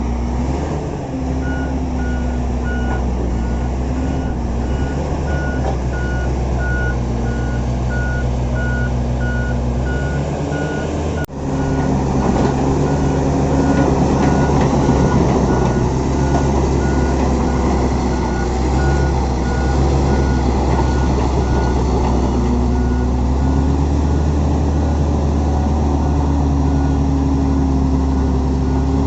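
Shantui SD20-5 bulldozer's diesel engine running, with its reversing alarm beeping in a steady, regular pulse while the machine backs up. About eleven seconds in there is an abrupt break, after which the engine is louder. The alarm stops a few seconds before the end.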